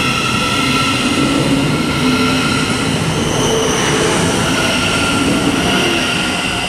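Thameslink Class 700 electric multiple unit pulling away from the platform: traction motor whine in several steady high tones over the continuous rumble of the train on the rails.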